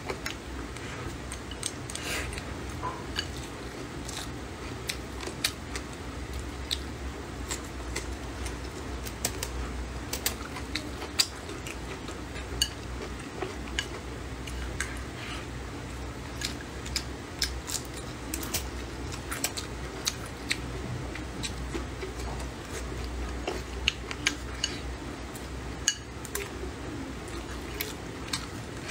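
Chopsticks clicking and scraping against a ceramic rice bowl in many short, irregular clicks, over a steady low hum.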